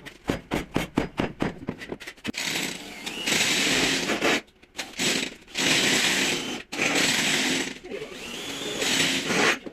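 A power tool run in four bursts of one to two seconds each, following a couple of seconds of quick, regular ticking strokes.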